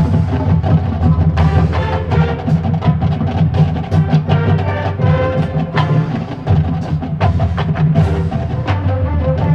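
Marching band playing, with drums and percussion keeping a busy beat under brass.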